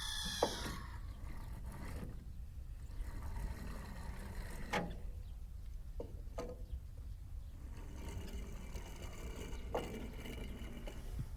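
A few sharp clicks and knocks from die-cast toy cars on a toy race track, over a steady low rumble.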